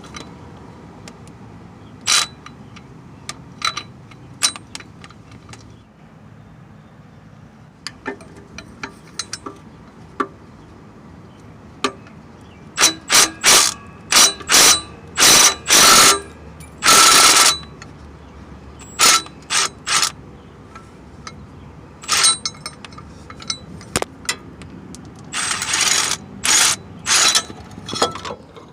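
Impact wrench firing in short repeated bursts on the 18 mm motor mount bolts, loosening them, with sharp tool clicks and knocks in between.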